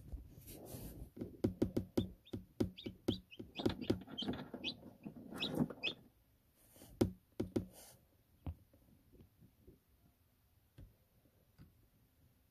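Newly hatched chick peeping in short high cheeps amid a quick run of taps and knocks. Both stop about eight seconds in, leaving a few faint ticks.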